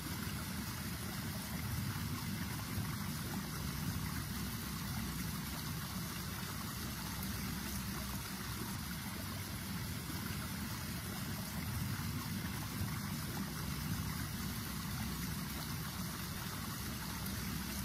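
Water running steadily over the rocks of a small backyard waterfall into a pond.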